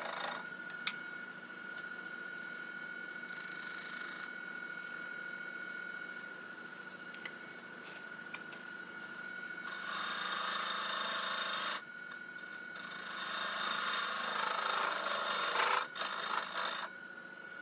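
Wood lathe running with a steady high whine while a bowl gouge cuts the spinning maple burl and its epoxy fill. A hissing cutting noise comes in twice, about ten seconds in and again from about thirteen to sixteen seconds.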